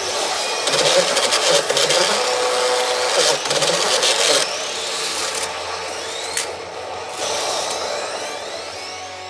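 Pachinko machine sound effects from the P北斗の拳9闘神 cabinet: a dense electronic clatter with a held tone in the first half. Several rising swept tones follow in the second half.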